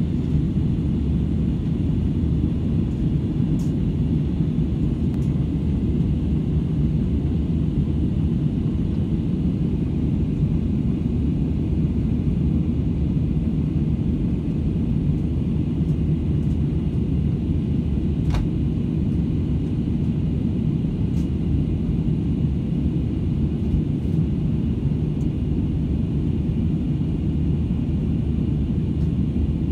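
Steady low rumble of an airliner's cabin in flight: engine and airflow noise heard from inside the cabin, unchanging throughout.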